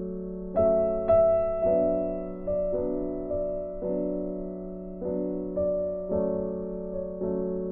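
Background piano music: slow notes, each struck and then ringing and fading, about one to two a second.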